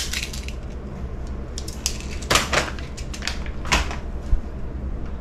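Plastic clicks and rattles from an airsoft BB speed loader and magazine being handled, with a few sharper clacks about two, two and a half, and nearly four seconds in, over a steady low hum.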